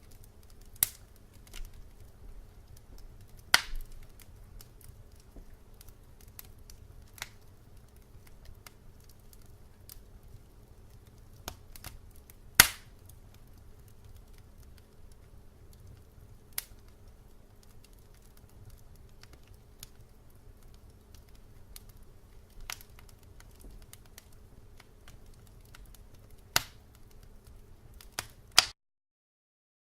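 Fireplace fire crackling: a low steady rumble with irregular sharp pops and snaps, one standing out about halfway through. It cuts off abruptly near the end.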